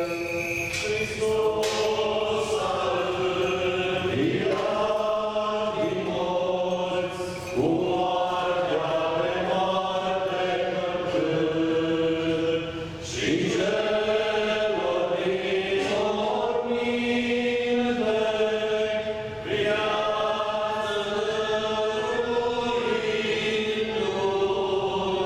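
Orthodox Easter liturgical chant sung by a group of voices, in long held phrases with short breaks between them.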